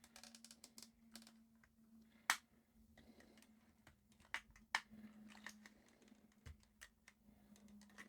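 Faint small clicks and taps of plastic parts being handled and prised apart while dismantling a handheld CB radio, with a sharp click about two seconds in and two more around the middle, over a faint steady low hum.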